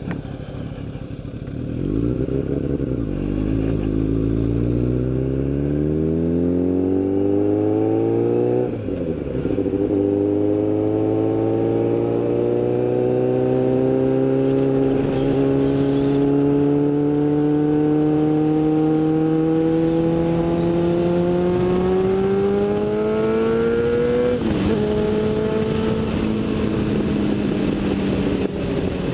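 Sport motorcycle engine accelerating, rising in pitch through the revs. It drops sharply on an upshift about nine seconds in, climbs slowly through the next gear, and upshifts again about twenty-four seconds in before settling into a steady cruise.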